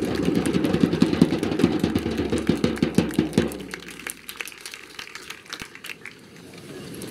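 Crowd applauding, dense at first, then dying away about three and a half seconds in to a few scattered claps.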